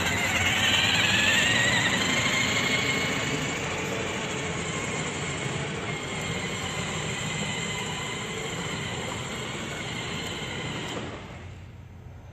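Electric drive motors of a remote-control motorized cooler running on high speed under a heavy load of over 75 pounds, with its wheels rumbling over the ground. The motor whine rises in pitch over the first two seconds as it speeds up, holds steady, then fades near the end.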